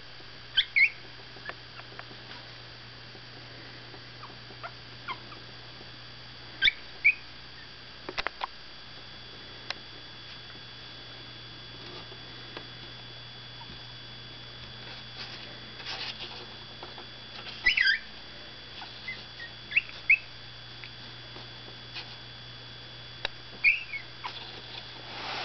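17-day-old Miniature Pinscher puppies giving short, high-pitched squeaks every few seconds, some in quick pairs, over a steady low hum.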